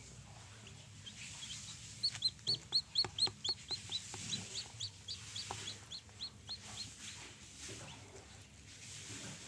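Newly hatched chick peeping: a run of short, high, shrill peeps, about four a second, starting about two seconds in, loudest at first and fading away after a few seconds.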